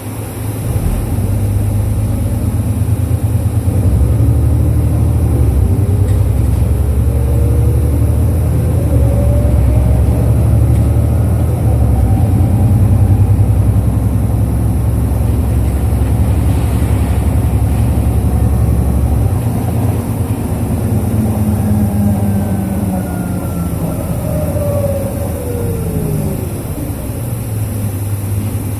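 Inside a 2005 Isuzu Erga KL-LV834L1 city bus under way: a steady low engine drone, with a drivetrain whine that rises and falls in pitch twice. The drone eases after about 19 seconds.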